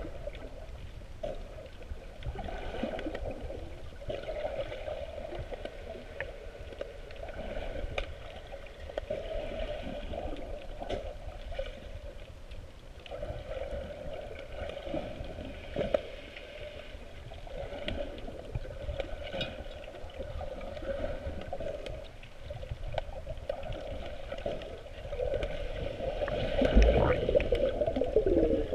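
Muffled underwater water noise heard through a submerged GoPro Hero 3+'s waterproof housing: a continuous, uneven swishing and gurgling that swells and fades, growing louder near the end.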